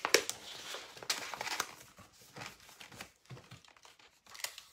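Stiff glittered scrapbook paper crinkling and clear sticky tape being pulled and torn as the paper is taped around a cardboard tube, in short scattered crackles that are loudest and densest in the first second or so, then sparser.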